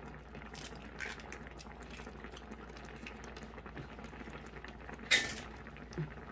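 Rice cake and dumpling soup boiling in an electric hot pot: a steady, low bubbling, with faint small clicks. One sharp clink of tableware sounds about five seconds in.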